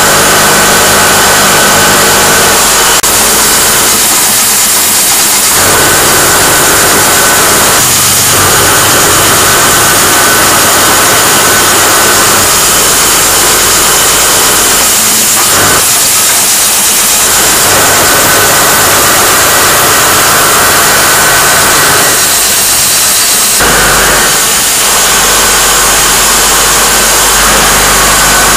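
Loud, steady din of automatic production machinery making plastic wall plugs, with vibratory bowl feeders running: a constant hiss and rattle over a steady hum, whose lowest part drops out briefly a few times.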